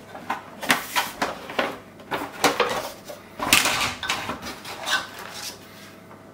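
Plastic washing machine door frame and ring being pried apart and handled on a wooden table, table knives wedged in its clips: a string of clicks, knocks and rattles, with a longer scraping sound about three and a half seconds in.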